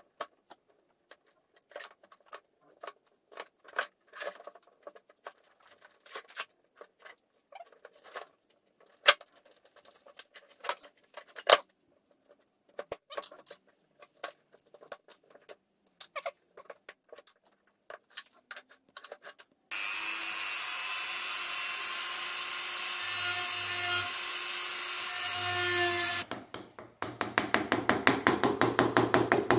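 Wood carving on a small wooden figure: a carving tool cutting into the wood in scattered sharp clicks and scrapes, then a rotary tool running for about six seconds from about two-thirds in, then a rapid even tapping of about eight strokes a second near the end.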